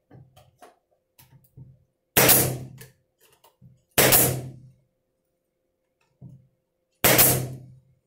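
A roof panel knocked down onto a hollow wooden birdhouse box: three loud knocks with a short fading tail, about two, four and seven seconds in, with softer taps and clicks between.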